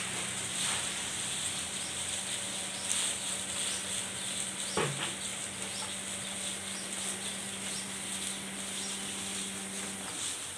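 Dairy cows eating long fresh grass from a feed trough: repeated crunching, tearing and rustling of the stalks as they bite and chew. The cows are recovering from foot-and-mouth disease and are eating normally again. A steady low hum runs underneath and stops near the end.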